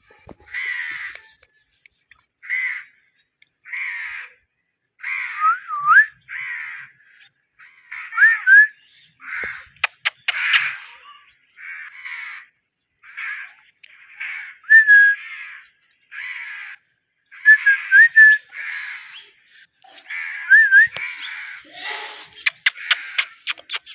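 A pet parrot calling again and again: a string of short raspy calls about half a second each, mixed with several clear rising whistles, then a quick run of clicks near the end.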